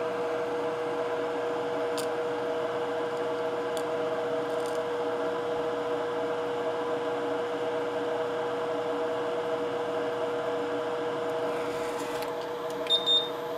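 Steady electric hum of workbench fan equipment, with a steady mid-pitched tone and an even hiss. A few faint clicks come early, and two short, louder sounds come near the end.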